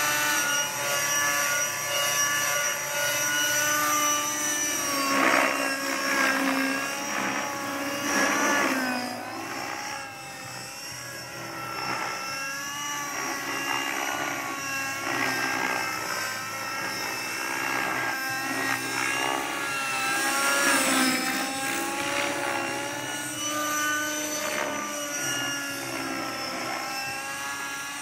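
Align T-Rex 600 radio-controlled helicopter flying, its rotor and drivetrain whine gliding up and down in pitch as it manoeuvres. It grows quieter about a third of the way in as the helicopter climbs farther off.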